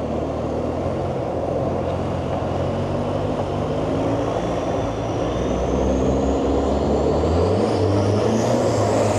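300–400 hp turbo diesel longtail boat engine running hard under way, with a thin high whine that climbs steadily in pitch; the engine note rises and gets a little louder in the last few seconds as the boat speeds up.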